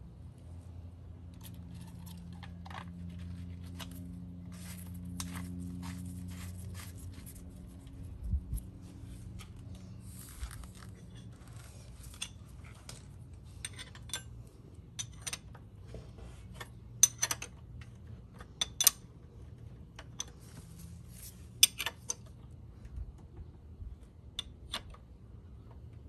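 Steel combination wrench clicking and clinking against the oil filter screen cap and engine case of a Honda Helix scooter as the cap is fitted and tightened: a scattered run of sharp metal clicks, a few much louder ones near the middle. A low steady hum sits underneath, stronger in the first several seconds.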